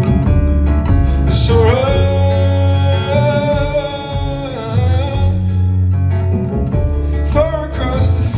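Live band playing: acoustic guitar with bass guitar, keys and drums. A long sung note is held from about a second and a half in to about five seconds, and a shorter vocal line comes in near the end.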